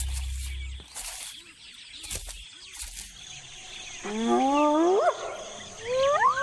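Music ends within the first second, leaving faint rustling outdoor ambience. From about four seconds in, wild animals give long rising whooping calls, several overlapping.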